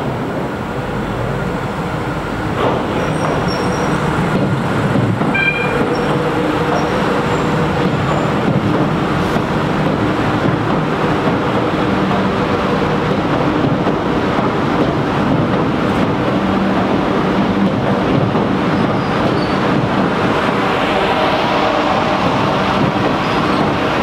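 Buenos Aires Subte Line A 200-series train running slowly into the underground depot, a steady rumble that swells over the first few seconds, with brief high wheel squeals around five to six seconds in.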